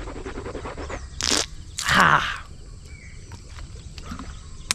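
A man gargling water, a quick rattling in the throat, then spitting it out twice in short bursts about a second and two seconds in; the second spit is louder and throaty.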